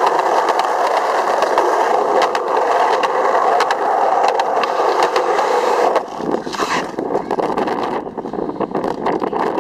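Skateboard wheels rolling on a concrete sidewalk, a steady rumble with clicks as they cross the pavement joints. About six seconds in the rolling stops and the sound turns quieter and uneven.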